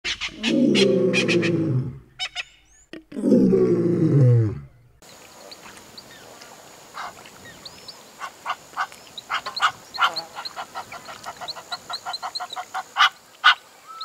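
Two long, deep roaring animal calls, the loudest sound here, falling in pitch at their ends. From about five seconds in they give way to a waterside scene with a steady faint high hiss and scattered chirps. In the second half a reed cormorant's call builds into a rapid series of clicking, cackling notes, about four a second, before stopping near the end.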